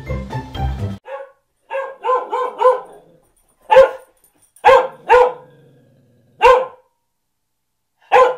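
Music stops about a second in, and a dog starts barking. First comes a quick run of short, lighter barks, then five loud single barks spaced about a second apart.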